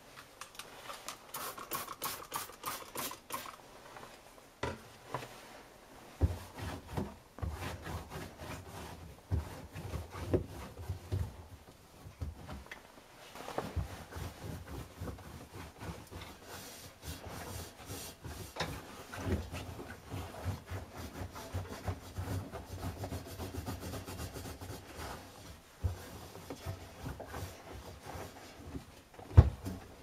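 Hand scrubbing and wiping on the washing machine: irregular rubbing and scraping with scattered clicks and dull knocks, and one sharp knock near the end.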